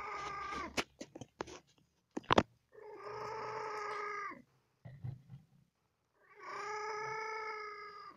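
A cat mewing in three long, drawn-out calls of steady pitch, each lasting about two seconds. Between the first two calls comes a quick run of sharp clicks, the loudest of them about two seconds in.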